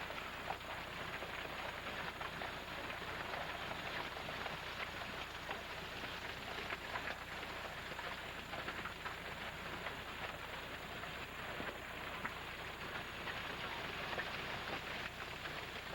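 Hail storm: hail and rain pelting down in a dense, steady patter, with scattered sharper ticks of individual hailstones striking.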